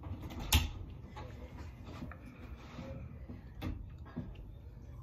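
A door opening, with a sharp latch click about half a second in, then a couple of softer knocks and clicks over quiet room noise.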